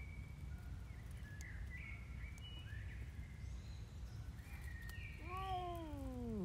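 Birds chirp in the background. About five seconds in, a cat gives a long, drawn-out yowl that slides steadily down in pitch.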